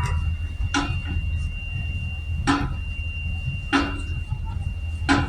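Sharp knocks with a short ringing note, evenly spaced about every second and a half, over a steady low rumble and a faint thin steady whine.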